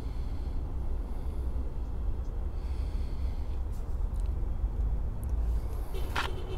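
Low, fluctuating rumble of wind buffeting the phone's microphone, with a short breath about six seconds in.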